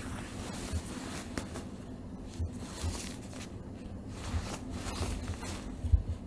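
Nylon down jacket rustling and crinkling as a cat pushes its head into it and shifts its paws on the fabric, with a few soft thumps, the firmest near the end.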